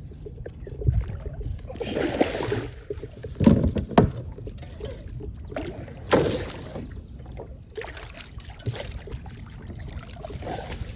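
Handling noises: rustling and scuffing over a steady low rumble, with a few sharp knocks, the loudest two about three and a half and four seconds in.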